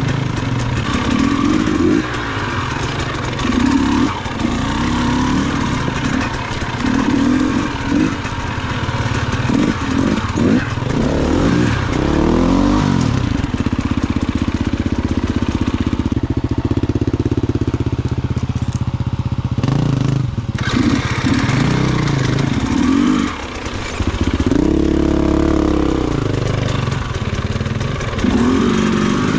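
Off-road motorcycle engine being ridden on a trail, its revs rising and falling over and over as the throttle is worked and gears change, with a longer steady pull in the middle.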